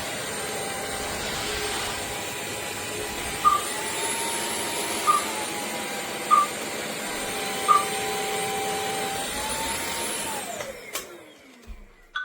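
Bissell CrossWave OmniForce wet-dry floor vacuum running with a steady motor whine that shifts up and down in pitch a couple of times. Four short sharp chirps come about a second and a half apart. Near the end the motor winds down and stops.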